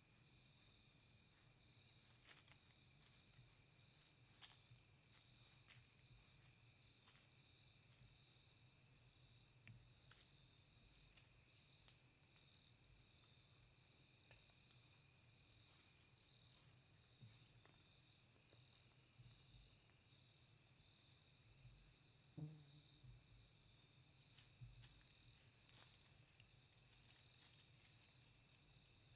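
Faint, steady high-pitched insect chorus, a continuous shrill trill like crickets. There is a single soft knock about three-quarters of the way through.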